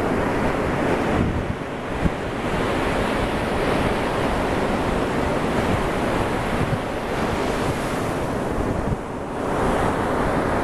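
Ocean surf breaking on a sandy beach, a continuous wash of waves that swells louder about two seconds in and again near the end. Wind buffets the microphone throughout.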